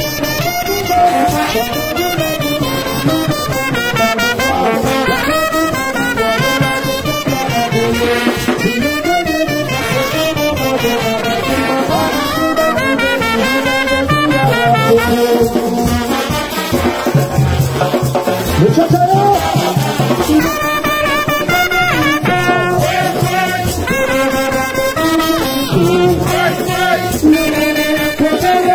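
Haitian rara band playing live: trumpets and a sousaphone play a loud brass melody, with the crowd singing along.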